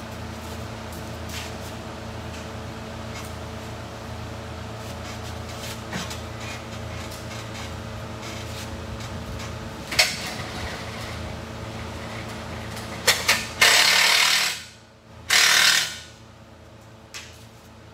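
A steady mechanical hum with a few sharp clicks. It gives way near the end to two loud hissing bursts about a second long each, like compressed air or a spray being released.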